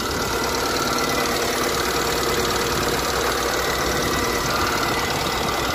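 Diesel engine of a SANY SY135F excavator running steadily, heard up close with the engine compartment open.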